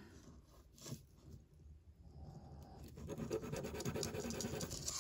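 A gold-toned chain being rubbed across a black touchstone to leave a streak for an acid gold test: a dry, irregular scratching that starts about halfway through and grows a little louder. A small tap comes just before it.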